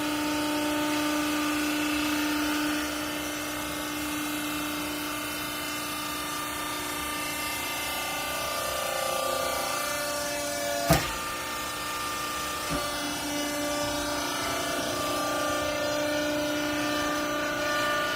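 Hydraulic baler's pump motor running with a steady whine of several held tones, shifting slightly in pitch partway through. A single sharp knock sounds about eleven seconds in, with a lighter one a couple of seconds later.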